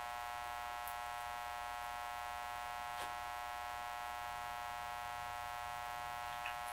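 Steady electrical mains hum with a high, buzzy stack of tones, unchanging throughout, and one faint click about three seconds in.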